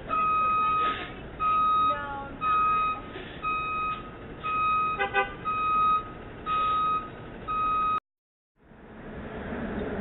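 A vehicle's reversing alarm beeping at one steady pitch, about once a second, with a short clatter of knocks about five seconds in. The beeping cuts off about eight seconds in, and a rising wash of traffic noise follows.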